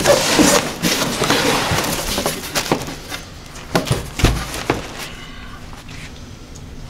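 Cardboard shipping box being opened: the flaps creak and scrape open and the plastic air-pillow packing inside crackles and rustles. A few sharp knocks follow, with a dull thump about four seconds in.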